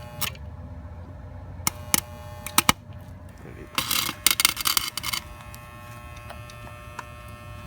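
Arc welder striking briefly on a differential: a few sharp clicks, then about a second of crackling arc, over a steady electrical hum.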